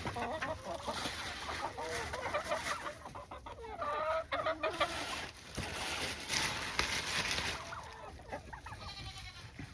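Chickens clucking, a series of short calls, with a stretch of rustling noise about six seconds in.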